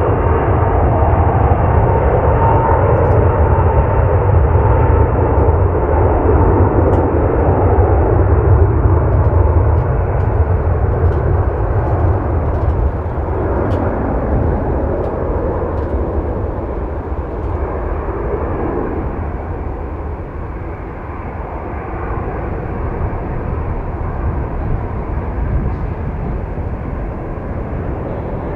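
Boeing 777 twin-engine jetliner at take-off power: a deep, steady jet rumble with a thin whine that fades out within the first few seconds. The noise slowly dies away through the second half as the aircraft lifts off and climbs out.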